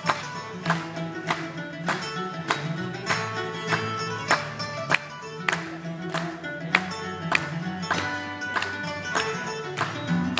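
Bluegrass string band playing an instrumental break: acoustic guitar, mandolin and bass, with plucked notes and chords on a steady beat over the bass line.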